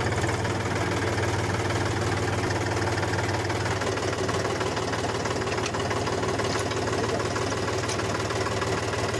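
Mini tractor's small engine running steadily with an even, rapid beat.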